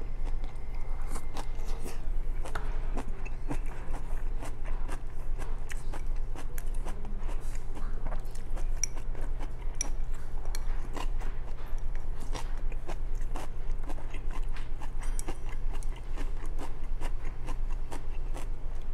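A person eating close to the microphone: chewing mouthfuls of stir-fried cabbage and rice, with many small sharp clicks of chopsticks against a rice bowl, over a steady low hum.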